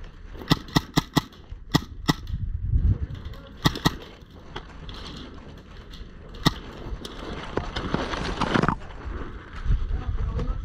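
Airsoft guns firing: sharp single pops in irregular clusters, about nine in the first six and a half seconds. A rustling noise follows, from about seven to nearly nine seconds in.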